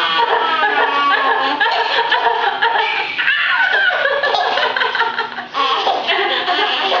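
Baby laughing hysterically in peal after peal as she is nuzzled, with only a brief catch of breath about five and a half seconds in.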